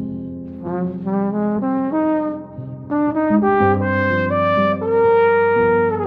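Flugelhorn playing a melody over sustained piano chords: two runs of quick notes with a short break between them, the second ending on a long held note.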